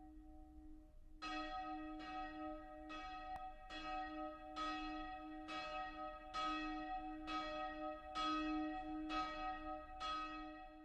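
A single church bell ringing the evening bell, struck evenly a little faster than once a second, each stroke sounding the same set of tones with a hum that lingers between strikes. The strikes begin about a second in, after only the bell's fading hum, and stop shortly before the end.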